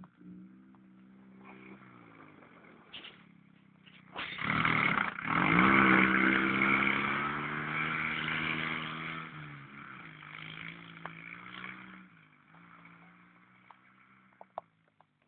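Dune buggy engine running at a distance, then revving hard about four seconds in as it accelerates across the snow. The pitch climbs and stays high and loud for several seconds, then drops back to a quieter, lower steady note.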